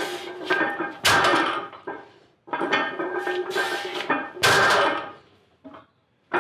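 Loaded barbell with bumper plates being deadlifted and set down on the floor: two sharp clanks, about a second in and again about four and a half seconds in, with the plates and steel bar rattling and ringing between them.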